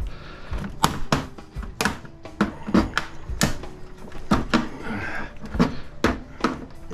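Irregular series of sharp knocks and clacks from an old Dell computer case being pried and pounded apart, its plastic and metal panels banging as they are forced.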